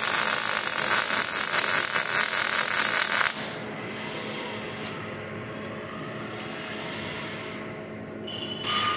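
Robotic MIG/MAG welding arc crackling and hissing loudly for about three seconds as the KUKA robot's torch lays a weld, then cutting off suddenly when the arc stops.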